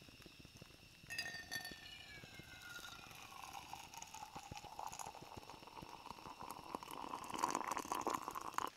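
Hot tea poured from a camping kettle into a tall mug: a trickling stream that starts about a second in, its pitch sliding down over the first few seconds, growing louder near the end and stopping suddenly.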